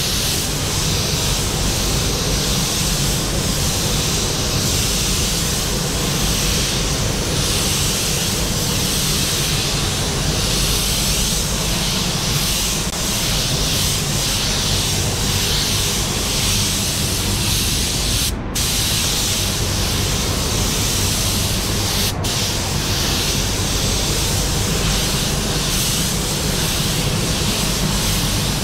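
Compressed-air paint spray gun laying on basecoat with a steady hiss. The trigger is let off twice, briefly, in the second half. A steady low rumble runs underneath.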